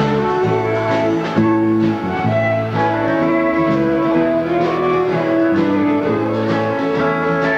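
Live country dance band playing an instrumental passage: guitar with held melody notes over a steady drum beat.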